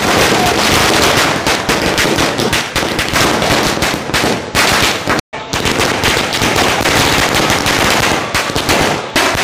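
A long string of firecrackers bursting in a continuous rapid crackle of loud bangs, breaking off briefly about five seconds in and then going on.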